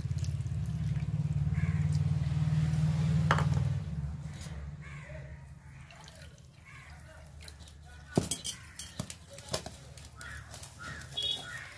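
Water poured onto damp rice flour in a steel plate, then a hand mixing the flour, with bangles and fingers clicking against the steel plate several times near the end. A low steady hum runs under the first few seconds.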